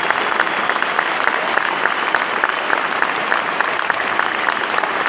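Large stadium crowd applauding steadily: many hands clapping at once.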